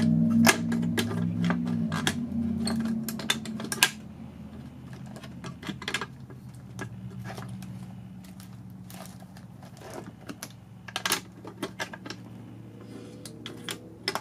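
Clicks and rattles of a wall-mounted plastic first-aid kit being unlatched, opened and its contents handled, with a louder group of clicks in the first four seconds and scattered ones after. A steady low hum runs underneath, louder for the first four seconds.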